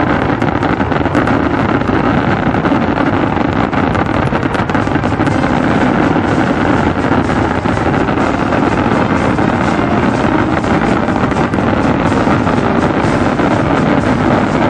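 Fireworks barrage at a display's finale: a continuous, loud din of many overlapping shell bursts and crackles with no let-up.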